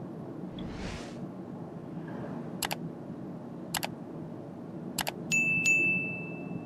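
Steady road and tyre noise inside a Toyota Corolla 125h hybrid cabin at highway speed, overlaid with a subscribe-button animation's sound effects: three quick double mouse clicks about a second apart, then a louder bell ding that rings for about a second and a half.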